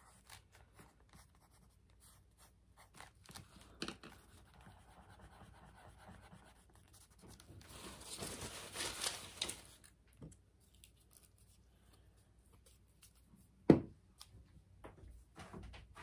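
Black fine-tip pen scratching across a paper journal page in short strokes, then the rustle of a crumpled paper towel handled about halfway through. A single sharp knock, the loudest sound, comes near the end.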